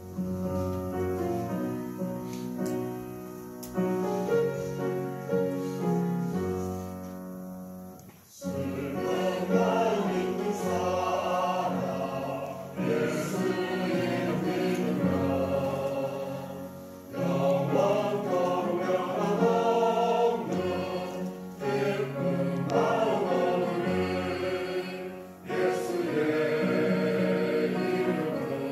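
A small mixed group of church members singing a hymn together in unison, after an instrumental introduction, probably on piano, that runs for about the first eight seconds.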